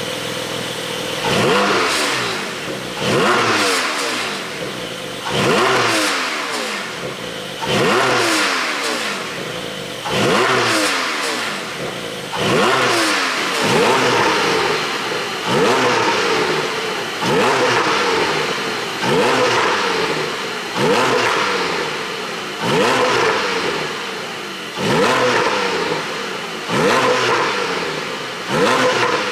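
Porsche 718 Boxster GTS 4.0's naturally aspirated flat-six revving in short throttle blips, about one every two seconds, each climbing sharply and falling back toward idle. The exhaust flaps are held open by an ECU tune that adds pops on the overrun.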